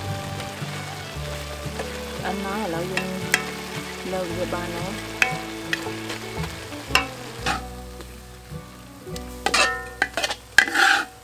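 Bamboo shoots and meat sizzling as they are stir-fried in a wok, with a metal spatula clinking and scraping against the pan. A few louder scrapes come near the end.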